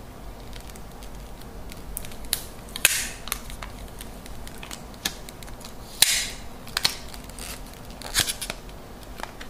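Hard clear-plastic iPod Touch display box being worked open by hand: sharp plastic clicks and short scraping rustles as the lid slides against the base, the loudest about three and six seconds in.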